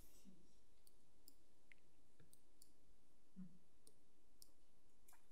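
Quiet room tone with a few faint, scattered clicks.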